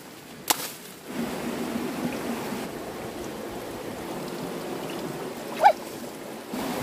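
Running water, a steady rushing that grows louder about a second in, with a sharp click near the start and a brief high call about five and a half seconds in.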